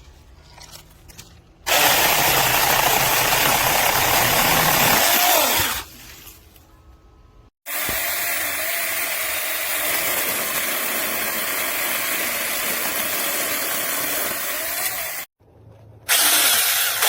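Small cordless electric chainsaw (Saker Mini 6-inch) running and cutting wood, in three separate runs that start and stop abruptly, the middle one the longest and steadiest.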